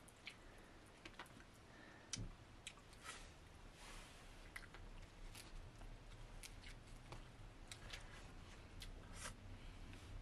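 Faint, scattered clicks and small handling noises of people eating with their hands from a shared platter of meat and rice, pulling meat apart and chewing.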